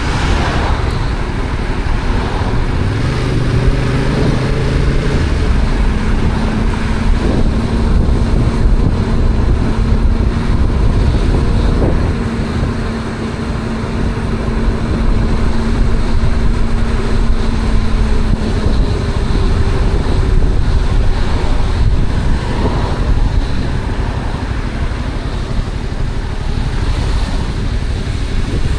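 Stock Yamaha XSR700's 689 cc parallel-twin engine and exhaust under way in city traffic, with wind buffeting the microphone. The pitch rises a few seconds in as it accelerates, then holds steady, and the level eases off briefly about halfway through.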